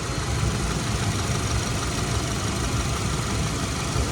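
Steady low rumble of an idling engine, even throughout.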